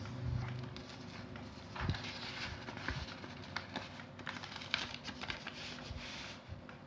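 A sheet of A4 printer paper being folded and creased by hand: irregular rustling with scattered light taps and rubs.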